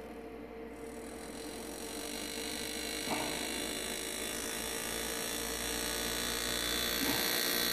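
Lindsay Classic air graver with foot control buzzing as its graver cuts lines in soft pewter, steady and growing louder over the first few seconds.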